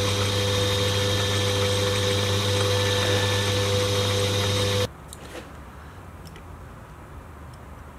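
Small metal lathe running steadily while turning a plastic gear blank, a motor-and-gear hum with a few held tones, then switched off, stopping abruptly about five seconds in. A few faint clicks follow.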